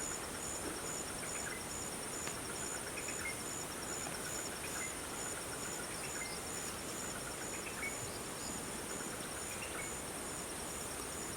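Outdoor ambience of insects trilling high and steadily, one of them in a regular pulsing chirp, with scattered faint bird chirps.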